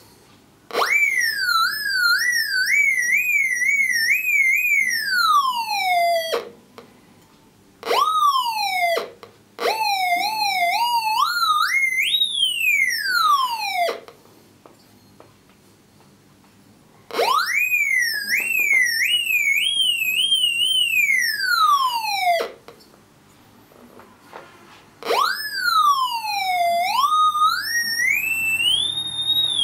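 Raptor X pulse induction metal detector giving its audio target signal: a whistling tone that climbs and wobbles in pitch as metal is brought to the 32D search coil, then glides down and stops. This happens five times, with short quiet gaps between.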